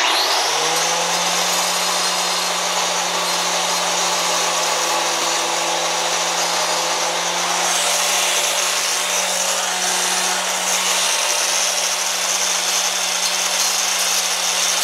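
Angle grinder starting up with a rising whine that settles into a steady run, its disc grinding on the steel mini bike frame at the foot-peg mount, trimming the weld so the peg sits level. The grinding hiss grows harsher about halfway through.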